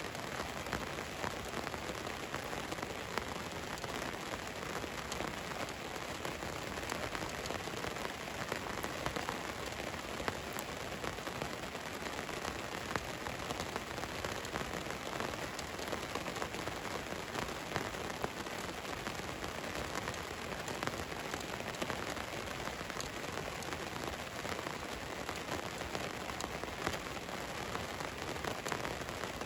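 Steady rain falling on a van, a dense even patter with many small drop ticks hitting the body.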